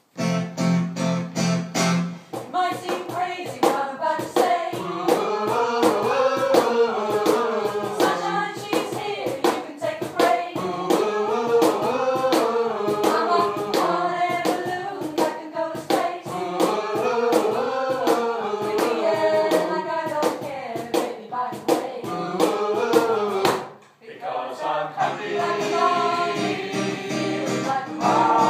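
A mixed-voice vocal group of men and women singing in close harmony without instruments, a low held bass note under the opening, with a steady beat of sharp clicks through the song. The singing drops away briefly about 24 seconds in and then starts again.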